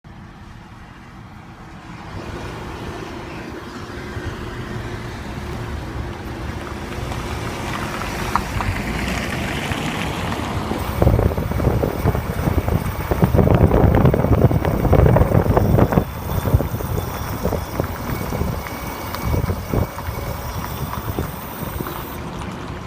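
Infiniti car moving, with its brake pads squeaking over road and wind noise that builds up and is loudest about halfway through.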